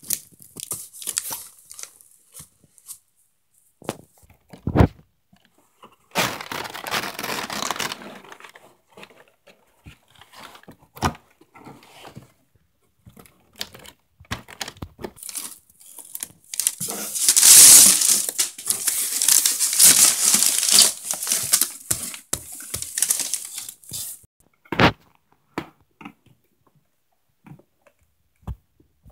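A cardboard shipping box being opened by hand: packing tape tearing, and brown kraft packing paper crumpled and pulled aside, with scattered clicks and two short thumps. The longest, loudest stretch of tearing and rustling comes about halfway through.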